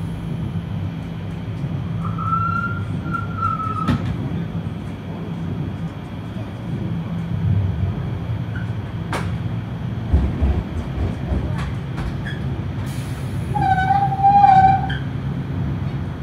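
Passenger train running, heard from inside the carriage: a steady low rumble of wheels on track with a few sharp clicks. A thin high squeal sounds for about two seconds near the start, and a lower, wavering squeal near the end.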